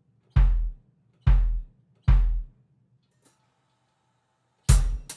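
Gretsch bass drum kicked singly three times, a little under a second apart, each a deep thud dying away quickly, picked up by an AKG D112 kick drum microphone. Near the end the kit comes in with a bass drum and cymbal crash.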